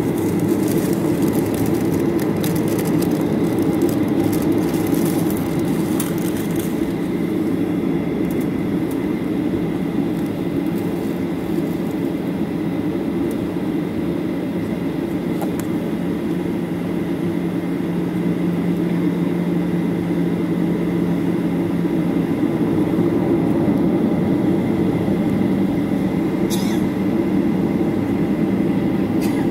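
Steady cabin rumble inside a Boeing 737-800 taxiing, its CFM56-7B engines at low thrust, heard from a seat behind the wing. A faint steady whine sits above the rumble, with small rattles in the first several seconds.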